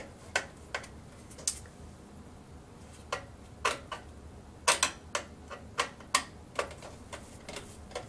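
Sharp, irregular clicks and ticks of a long screwdriver turning a CPU cooler's mounting screw down into its backplate, about a dozen in all and bunched together near the middle.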